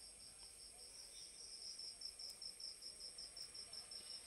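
Faint high-pitched insect chirping, an even pulse of about six chirps a second, against near silence.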